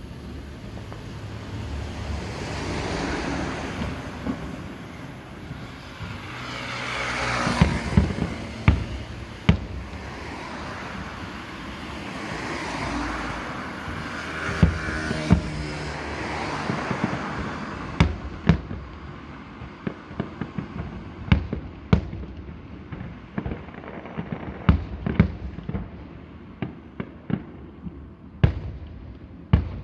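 Aerial fireworks bursting: crackling shells swell and fade several times, with a few sharp bangs among them, then a rapid string of sharp booms in the last third.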